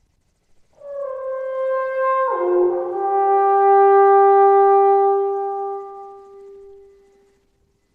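Brass horn music: a held note begins about a second in, slides down to a lower note a little over a second later, and the low note is held long and fades away near the end.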